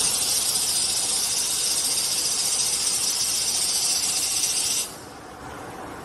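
A loud, steady hiss from the Velcro tape starch and finishing machine, cutting off suddenly about five seconds in. A quieter, even machine noise carries on underneath and after it.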